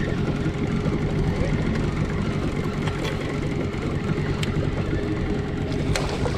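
Boat's outboard motor running steadily at low trolling speed, with a couple of light clicks near the end.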